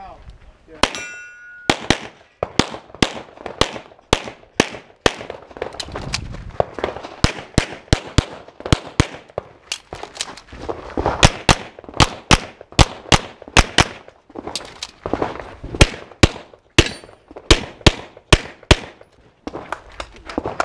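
A shot timer beeps about a second in. A semi-automatic pistol then fires rapid strings of shots, many in quick pairs, with short pauses for moving and reloading.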